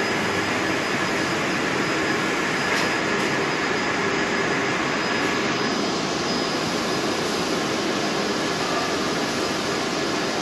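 Steady machine noise of a UV lacquer roller coating line running: roller coater, conveyor rollers and UV curing units together, an even whir with a few faint steady tones over it.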